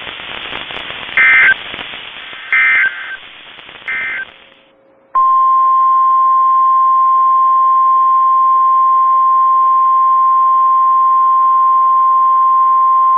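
NOAA Weather Radio broadcast: three short EAS/SAME digital data bursts, the end-of-message code, over receiver hiss. After a brief pause, about five seconds in, the loud steady 1050 Hz warning alarm tone starts over static, signalling that a new warning follows.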